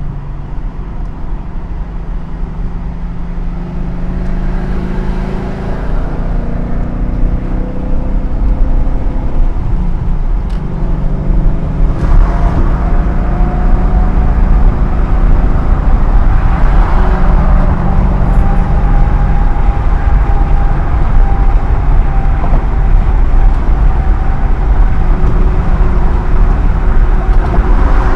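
BMW E39 M5's 4.9-litre S62 V8 running through a muffler-deleted exhaust under hard acceleration. It is loud and continuous, its note climbing and changing repeatedly, with an abrupt change about twelve seconds in, and it grows louder toward the end.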